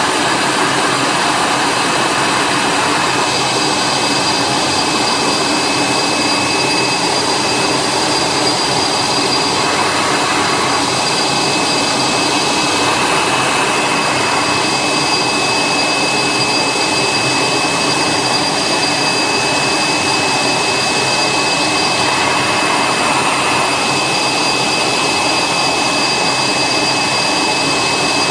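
Jingwei RC03 pattern cutting and template milling machine running: a steady, loud rushing noise with two constant high whines, its middle range changing every few seconds.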